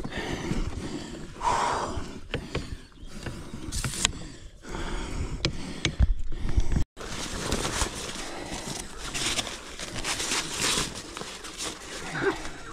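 Handling noise: irregular rustling and scraping of a landing net and gear, with a few sharp clicks. It cuts off abruptly about seven seconds in, and is followed by the rustling of nylon fabric as a carp weigh sling is unfolded.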